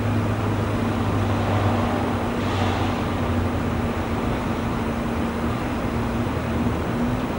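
Steady low drone of distant airport and traffic noise, with a constant hum under it and a short hiss about two and a half seconds in.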